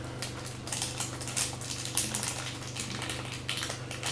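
Plastic packaging rustling and crinkling in irregular bursts, with a sharp click about two seconds in.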